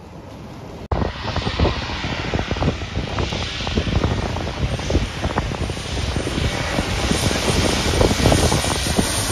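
Aircraft engines running loud at close range: a broad rushing noise full of rapid crackle. It comes in suddenly about a second in and holds steady after that.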